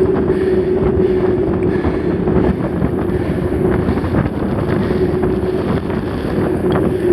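Wind rushing over the microphone of a mountain bike's camera while riding, with a steady hum and frequent small rattles and knocks from the bike on rough trail.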